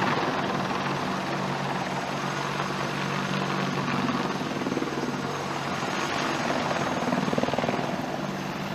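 AH-64 Apache helicopter flying low past, its twin turboshaft engines and main rotor giving a steady, fast rotor chop with a few steady low tones underneath.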